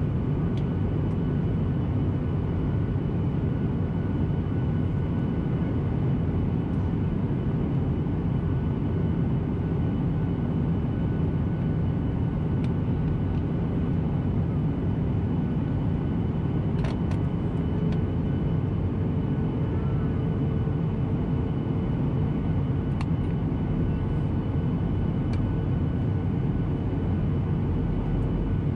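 Steady cabin drone of a Boeing 737-800 heard from inside, at a window seat: CFM56 engine and airflow noise with a faint whine over it. About halfway through, a low tone in the drone rises slightly.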